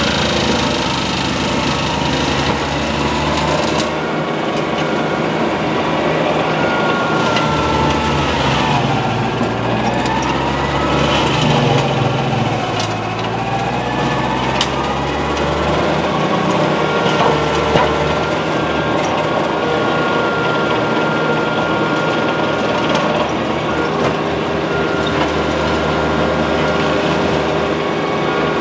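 A TYM T25 compact tractor's 25-horsepower diesel engine running hard to drive a Baumalight MP348 PTO forestry mulcher as it grinds through brush. The engine pitch sags and recovers as the mulcher takes the load, and sharp cracks of wood come through now and then.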